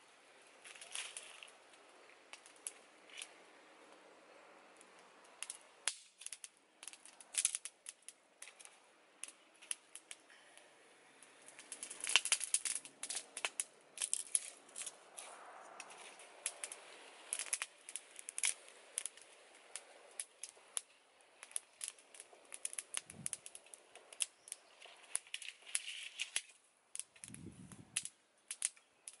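Small wood fire crackling with irregular sharp snaps, busiest about twelve seconds in, with two dull low thumps near the end.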